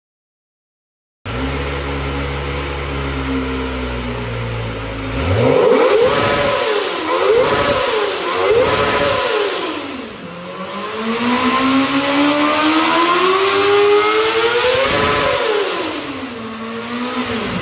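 A 250cc motorcycle engine on its stock exhaust idling steadily, then revved three times in quick succession. It then makes one long, slow rev up to high revs and drops back to idle. The engine note starts about a second in, after a short silence.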